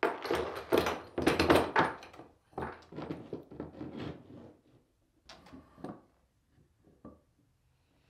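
Steel pipe clamps being laid out and shifted on a wooden workbench, with iron pipes and clamp heads clattering and knocking against the bench, and a hardwood board set down onto them. The clatter is loudest in the first two seconds, then comes in lighter groups of knocks.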